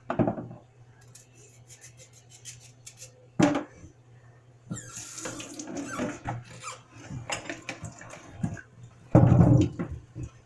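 Kitchen tap turned on about halfway through, water running and splashing into a stainless steel sink as peeled sweet potatoes are rinsed under it. Several knocks of hands and potatoes against the sink and a plastic bowl, the loudest near the end.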